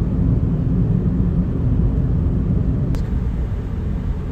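Steady low rumble of a car driving on the road, tyre and wind noise, with a brief click about three seconds in.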